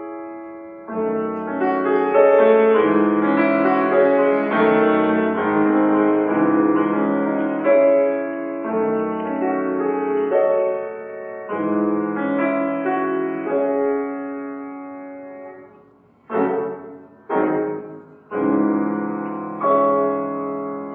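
Grand piano played solo, a classical piece: a busy passage of chords and runs that thins out and fades, then loud, separately struck chords from about sixteen seconds in.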